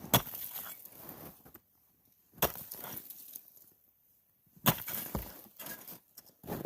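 Pulaski striking packed ice: three sharp blows a little over two seconds apart, each followed by a brief crunch of breaking ice.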